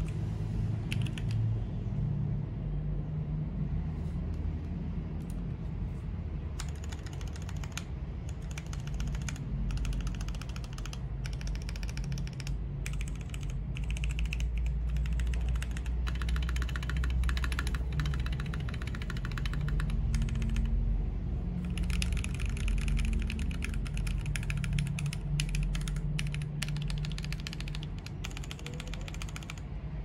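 Typing on a 40% mechanical keyboard with stock, unlubed Gateron Yellow linear switches and PBT keycaps in an acrylic case: rapid keystroke clacks, sparse at first and dense from about six seconds in, with some spring ping left in the unlubed switches. A steady low rumble runs underneath.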